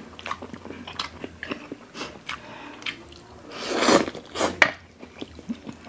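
Close-miked eating of instant spicy ramen noodles: wet chewing and smacking with small clicks throughout, and a louder, longer slurp of noodles about four seconds in.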